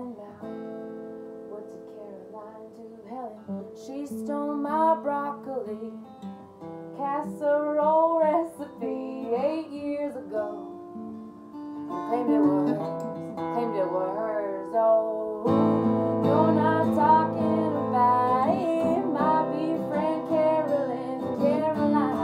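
A woman singing to her own strummed acoustic guitar; the guitar plays alone for the first few seconds before the voice comes in, and the playing gets louder and fuller about two-thirds of the way through.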